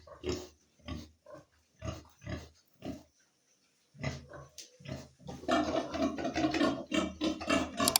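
A sow and her piglets grunting in short separate calls, then, from about five seconds in, a louder continuous din of many pigs calling together.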